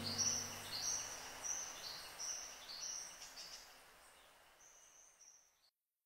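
Nature ambience of repeated high-pitched chirps, about one every half second, over the last of a music track fading out. The chirps grow fainter and the sound cuts off to silence near the end.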